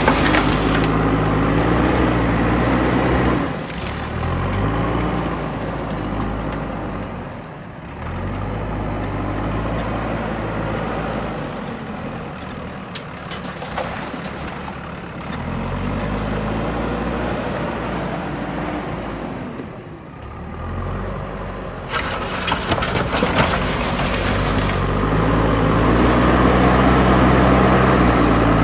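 A JCB backhoe loader's diesel engine works under load, its revs rising and falling again and again. A few sharp knocks come about three-quarters of the way through.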